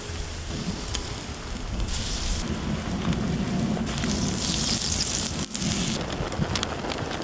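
Food sizzling and crackling in a hot frying pan, the sizzle swelling and easing over the seconds, with a low rumble underneath.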